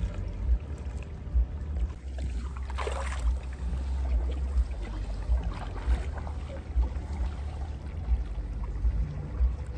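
Double-bladed kayak paddle dipping and pulling through calm water, with splashes and drips from the blades and one brighter splash about three seconds in. A steady low rumble runs underneath.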